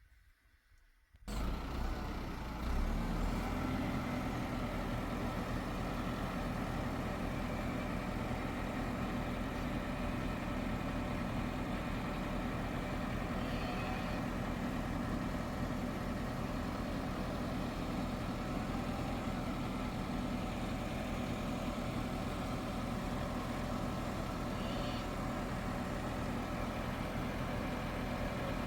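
A vehicle engine running steadily. It comes in suddenly about a second in, out of near silence, and holds an even, unchanging note.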